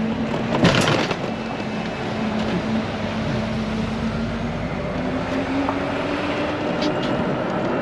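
Side-by-side utility cart driving, a steady motor drone with road and wind noise whose pitch rises a little about five seconds in. A single sharp knock a little under a second in.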